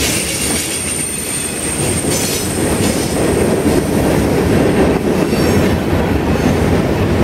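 Mixed freight train passing close by at speed: tank cars, covered hoppers and gondolas rumbling and clattering over the rails. A thin, steady, high wheel squeal sounds over it and fades out about five seconds in.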